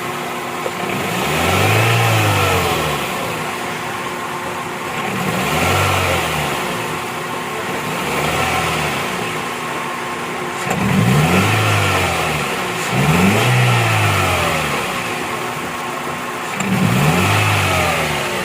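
Toyota Corolla four-cylinder petrol engine running and being revved up and let fall back to idle about six times. The engine is misfiring, which the mechanic traces to the cylinder 2 ignition coil shorting its current to the engine.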